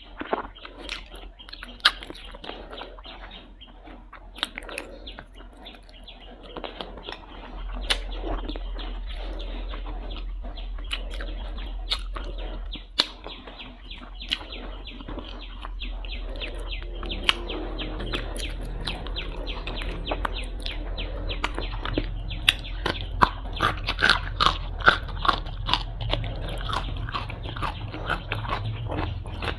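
Close-miked eating: chewing and sucking on soft braised duck feet, with small clicks and crunches of bone and cartilage. Near the end come louder, denser crunches of a raw green vegetable being bitten and chewed.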